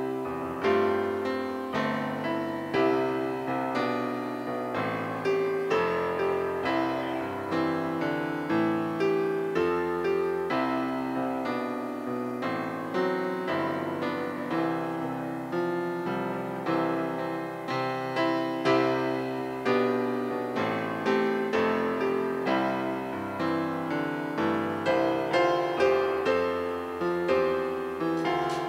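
Solo piano playing a slow, gentle piece, a steady stream of struck notes and chords that ring and fade.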